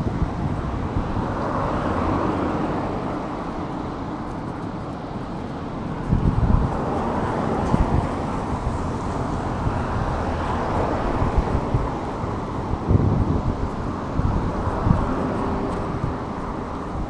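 Street traffic noise with wind rushing over the microphone of a moving bicycle, the wind gusting louder several times.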